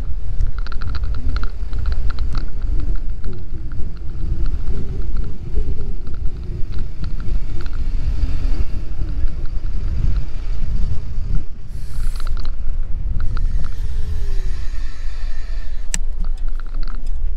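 Heavy wind rumble on the microphone from riding a Bird electric scooter along a road, with a faint whine from the scooter that glides in pitch.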